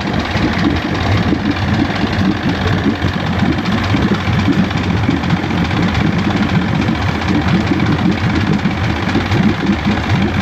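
A 1973 Johnson 65 hp two-stroke outboard running steadily at idle, still cold, with its thermostat not yet open.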